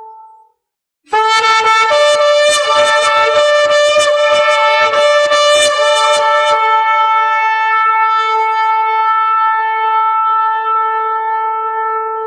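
Shofar-style ram's-horn trumpet blasts. A long held note stops, and after a short gap a new blast begins with rapid stuttering strokes and a second, higher note sounding over it. After about six seconds it settles into one long held note.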